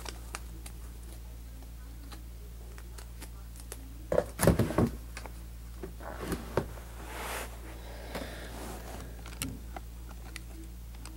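Light hand handling of VHS tape reels and cassette parts: a short cluster of plastic clicks and knocks about four to five seconds in, then a few faint ticks and rustles, over a steady low hum.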